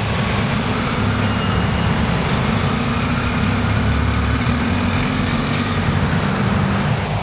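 A city transit bus pulls away and turns a corner close by: a steady low engine rumble with tyre hiss on the wet road. A faint whine rises in pitch as it picks up speed.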